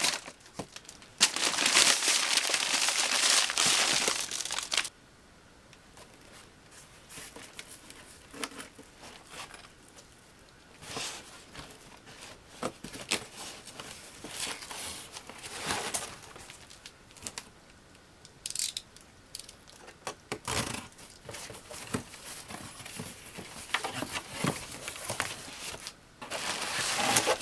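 Cardboard box and packaging being opened and handled: a loud stretch of tearing and crumpling over the first few seconds, then scattered, quieter rustling and crinkling with occasional louder crackles.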